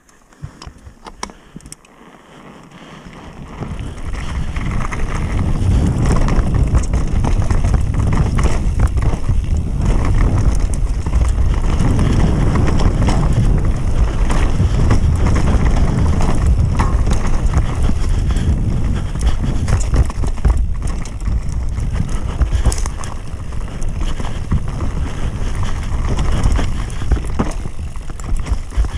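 Downhill mountain bike descending a rough dirt trail at speed: the tyres rumble, wind buffets the microphone, and the bike rattles and knocks over roots and bumps. The first few seconds are quieter with a few clicks, then the noise rises sharply about three to four seconds in as the bike picks up speed.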